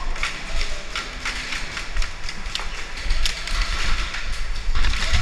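Irregular sharp snaps and knocks of an indoor airsoft game, a few a second at most, over a low rumble of movement as the player walks with the gun and gear.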